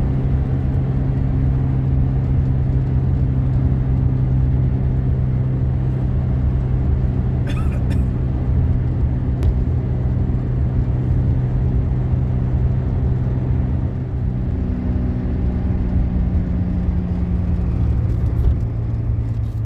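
Car engine and road noise heard from inside the cabin while driving at a steady speed, a steady low hum. The engine note changes about fourteen seconds in.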